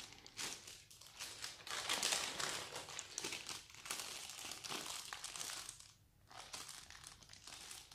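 Clear plastic packaging bags crinkling and rustling as bagged accessory cables and a small antenna are handled, easing off briefly about six seconds in.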